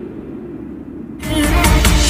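Music: a muffled, bass-heavy passage. About a second in, a much louder, bright electronic dance track cuts in, with falling bass sweeps.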